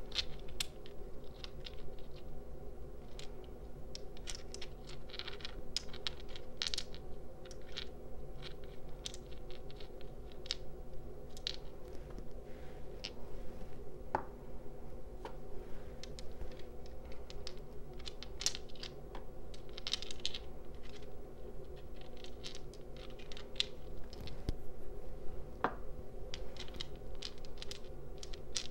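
Small polished crystal stones being handled: irregular light clicks and taps as they knock together and against a hard surface, with some scraping. A steady low hum sits underneath.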